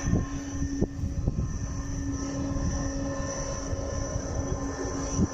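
Aircraft engine running steadily, a hum with a high whine held at a constant pitch, over an uneven low rumble.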